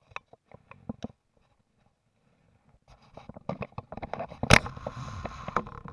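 Handling noise on a body-worn camera as fly line is stripped in by hand and a landing net is brought up: scattered clicks and rustles, busier from about three seconds in, with one sharp knock near the end.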